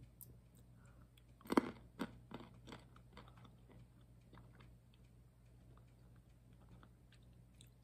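A person chewing whole almonds with their mouth, crunching, loudest in the first two seconds, then softer, irregular chews.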